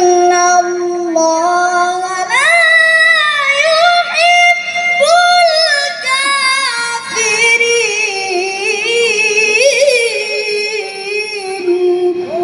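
A child's voice reciting the Quran in melodic tilawah style: long, high held notes with wavering ornaments that rise and fall, stopping right at the end.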